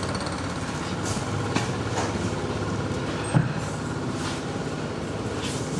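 An engine idling steadily, with one sharp click about three and a half seconds in.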